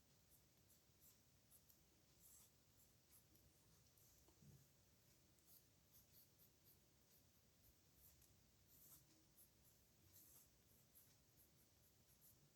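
Faint scratching of a pen on paper: many short, irregular strokes as characters are written by hand.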